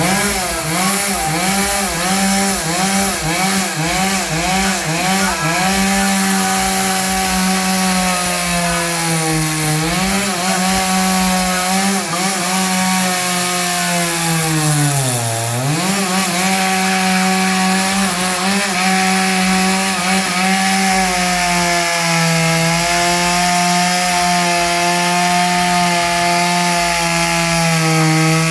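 Chainsaw running at high revs while cutting wood. Its pitch dips in quick repeated sags for the first few seconds as the chain bites, drops deeply twice more around ten and fifteen seconds in, then holds steady.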